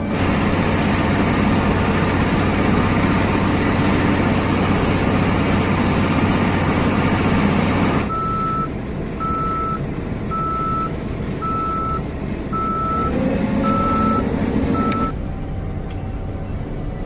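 Heavy machinery running loud for about eight seconds, likely the Sany SR155 rotary drilling rig's engine and hydraulics. The noise then drops, and a warning alarm beeps steadily at one pitch about once a second for several seconds while the machine keeps running and rises in pitch near the end.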